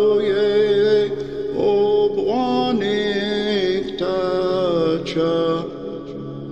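Meditation music: a voice chanting long, held notes that glide between pitches, in phrases of a second or two, over a steady drone. The chanting stops about a second before the end, leaving the drone.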